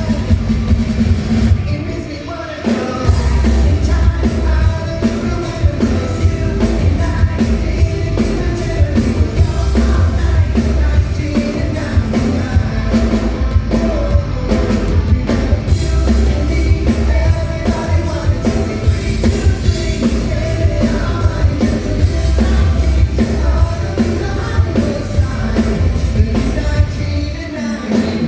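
Live pop-rock band playing a song with a steady drum beat and heavy bass, a singer's voice over it; the bass drops out briefly about two seconds in.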